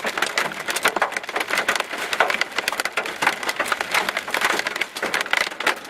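Marble- to golf-ball-sized hail pelting a vehicle in a severe thunderstorm: a dense, continuous clatter of hard, irregular impacts.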